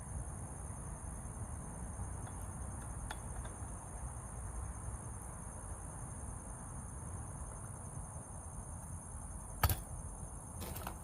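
Plastic and metal parts of a string trimmer's split shaft being forced together, with a few faint clicks. About ten seconds in comes a sharp snap, the shaft coupler seating, followed by a softer knock. Crickets chirr steadily in the background.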